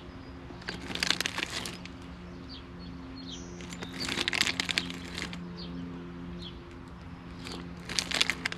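Hot dog sizzling and crackling on the rack of a portable charcoal grill over hot coals, in short bursts of popping about every three seconds over a steady low hum.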